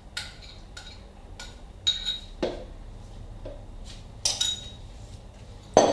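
A kitchen utensil knocking and clinking against a dish, with about ten separate clinks, two of which ring briefly. This is typical of a mixture being scraped and tapped out of a bowl. The loudest knock comes near the end.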